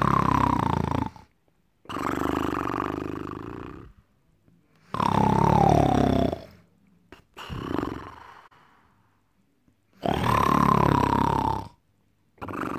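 A man snoring loudly and heavily: long rasping snores, one every two to three seconds, with short silences between. Some of them carry a whistling tone that falls in pitch.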